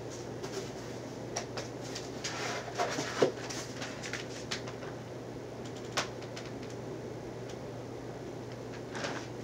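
Soft handling noises: rustles and several light clicks as a t-shirt is laid down and a plastic DVD case is picked up and handled, with a sharper click about six seconds in, over a steady low hum.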